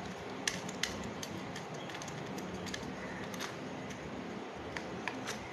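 Small sharp clicks and taps of a screwdriver and copper wire on the brass terminal screws of a switchboard socket as a wire is fastened, a few scattered clicks with the sharpest two near the start. A low steady hum runs underneath.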